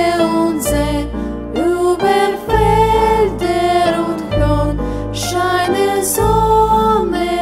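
Two girls singing a German children's song in unison over an instrumental backing track with sustained bass notes.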